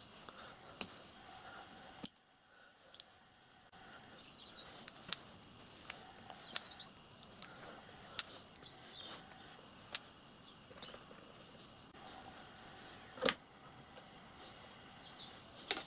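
Faint, scattered metallic clicks and clinks of a small spanner and brass clutch parts as the micro lathe's cone clutch is taken apart, with one louder knock about thirteen seconds in.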